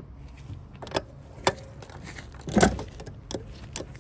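A handful of scattered metallic clicks and clinks of a hand wrench working a nut and knocking against the metal fittings, with one duller, louder knock about two and a half seconds in.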